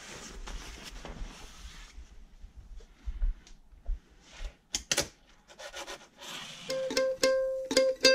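Cloth rustling, then a few light clicks and knocks of small objects being handled, the sharpest about five seconds in. Near the end a plucked-string song intro starts, repeating one note with a few higher ones.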